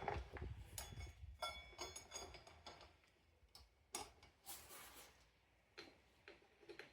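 Light metallic clicks and ticks of a motorcycle drive chain being handled and fed onto its sprocket, irregular and faint, thinning out after a few seconds.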